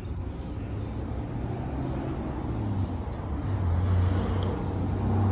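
Steady low mechanical rumble, like a motor or passing road traffic, swelling louder a little past the middle.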